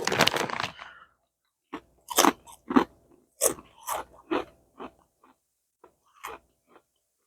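A person biting into and chewing potato chips: a burst of crunching, then about ten separate crunches spaced unevenly over the next few seconds.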